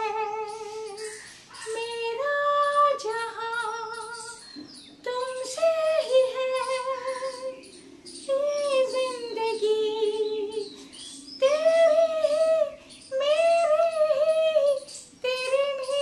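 A woman singing solo with no accompaniment, a slow melody of long held notes with vibrato, phrase after phrase with short breaths between.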